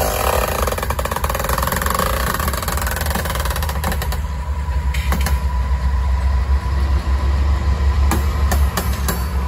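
A GE AC4400CW diesel-electric locomotive running at close range as it rolls slowly by. Its diesel engine gives a low, steady drone with a thin steady whine above it, and a few sharp clanks come from the running gear near the end.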